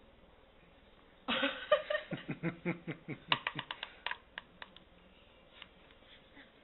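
A baby being spoon-fed oatmeal: a brief grunt about a second in, then a quick, irregular run of short clicks and wet smacks for about three seconds.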